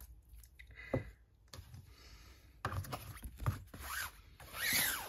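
Paper scratchcards being handled: soft rustling, sliding and scraping of the cards against each other and the table, with a few small clicks, busier from about halfway through.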